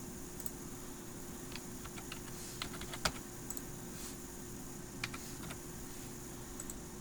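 Computer keyboard being typed on: irregular keystrokes in a cluster from about a second and a half in, the loudest near three seconds, then a few more about five seconds in, over a steady faint hum and hiss.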